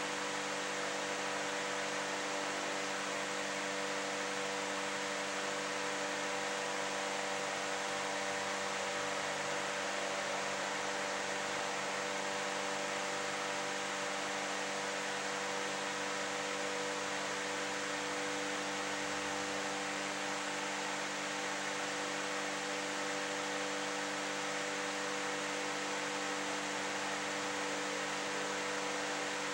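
Steady hiss with a constant electrical hum made of several fixed tones, and no other sound standing out.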